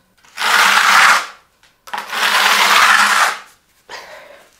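Wide steel plastering trowel spreading gypsum plaster across a wall: two long scraping strokes of about a second and a half each, then softer, shorter scrapes near the end.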